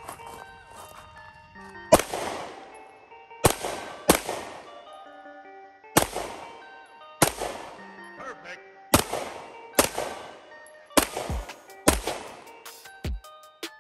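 Glock 17 9mm pistol fired in a slow string of about ten shots, each a sharp crack with a short echo, spaced a second or so apart and coming faster near the end. Background music plays under the shots.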